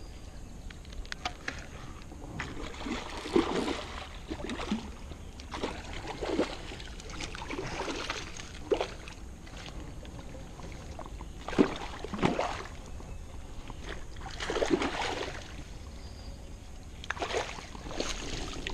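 Water splashing and sloshing in irregular bursts every few seconds as a hooked fish thrashes at the surface close to the bank, ending with the fish being drawn into a landing net.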